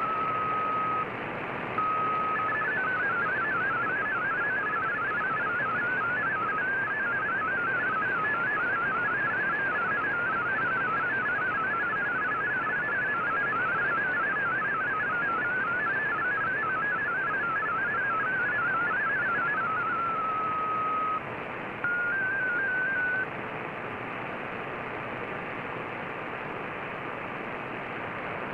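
Shortwave MFSK digital data signal from an Icom IC-R9500 receiver: a warbling stream of rapidly hopping tones over steady static hiss, starting after a steady lead-in tone. About 20 seconds in it ends with a held tone and a brief two-step tone, leaving only the hiss of the shortwave channel.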